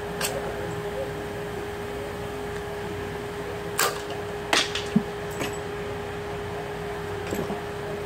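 A handful of short, sharp clicks and knocks as tools and parts are handled at the engine's timing chain end. They cluster around four to five seconds in, with a softer pair near seven, over a steady hum.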